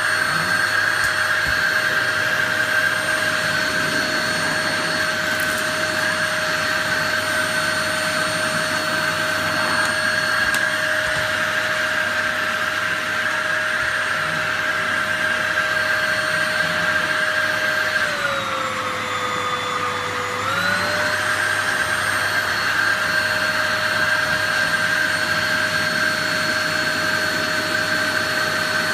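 Sharp EC-PX600-P filterless cyclone vacuum cleaner running, a steady motor whine over a rush of air. About two-thirds of the way through, the whine drops lower in pitch for a couple of seconds, then rises back.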